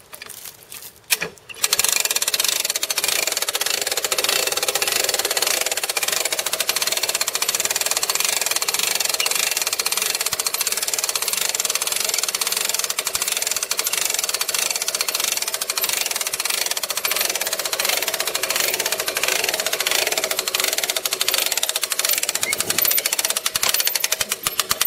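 Hand-crank ratchet winch on a homemade ballista clicking rapidly and continuously as it is cranked fast, winding the bowstring back against the torsion springs. The clicking starts about a second and a half in.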